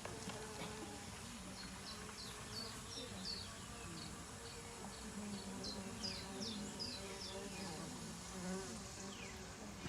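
Small birds chirping: a quick run of short, high chirps, each dropping in pitch, about three or four a second, over a faint steady low hum.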